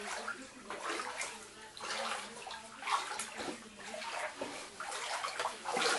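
Floodwater sloshing and splashing in irregular surges, about one every second, as it is stirred, typical of someone wading through it.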